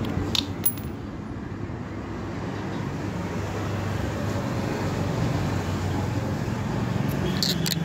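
Compressed air hissing steadily from an air-line chuck into a motorcycle's tubeless tyre through a newly fitted valve, with a low hum underneath that grows slightly louder toward the end.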